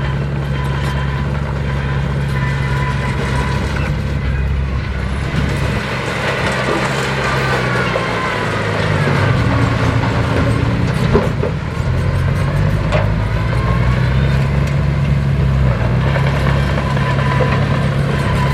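Heavy diesel engine of earthmoving machinery running steadily under work. Its pitch shifts a few times, and a higher whine glides up and down through the middle.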